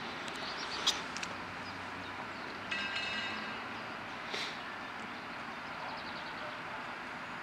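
Steady running noise of a standing ČD class 163 electric locomotive, with a few short clicks or squeaks and a brief high ringing tone about three seconds in.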